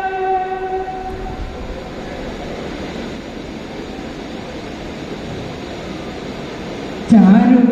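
A woman singing unaccompanied into a microphone holds a note that fades out in the first second or so, then several seconds of steady background noise with no singing, before she comes back in loudly with a new phrase near the end.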